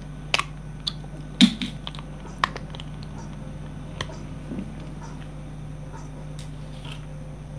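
A few scattered sharp clicks and small knocks over a steady low hum, the loudest about a second and a half in.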